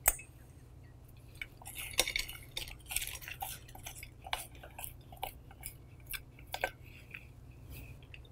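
Sliced onions tipped from a small glass bowl into a large glass mixing bowl: a sharp knock at the very start, a crisp rustle as the slices slide in about two seconds in, then a run of light, irregular clicks and taps as a spatula scrapes the last slices off the glass.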